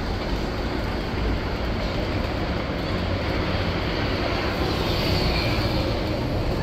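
Steady running rumble of a Hong Kong double-decker electric tram, its wheels on the rails, heard from on board.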